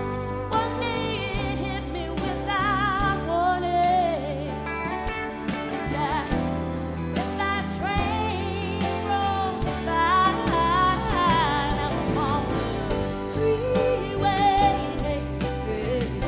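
Live band performance: a woman sings lead with wide vibrato over strummed acoustic guitar, electric guitar, bass and a drum kit keeping a steady beat.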